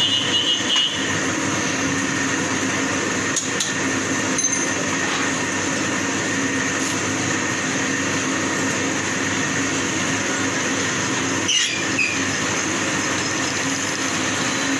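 Steady drone of workshop machinery running, an even hum with a few light metallic clicks and taps.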